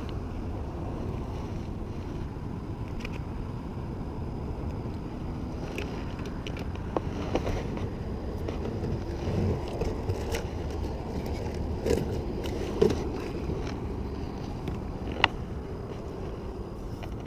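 Steady low wind rumble on the microphone, with scattered light clicks and knocks as a crappie is unhooked and fishing tackle is handled in a plastic kayak. The two sharpest knocks come in the last few seconds.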